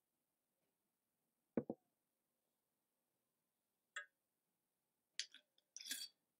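Near silence broken by a dull double thud about a second and a half in, then a few sharp clicks and clinks near the end as a drinking glass and a bottle are handled.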